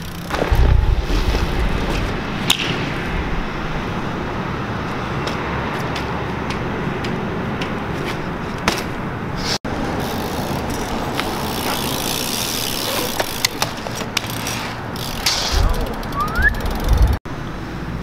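BMX bikes riding on concrete: a steady rolling noise with scattered clicks and a few low thumps.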